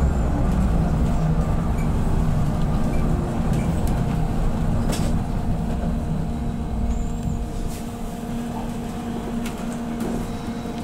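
Van Hool AG300T articulated trolleybus running on its auxiliary diesel engine, heard from inside the cabin: a steady low engine drone while under way, a little quieter about three-quarters through, with a few faint rattles.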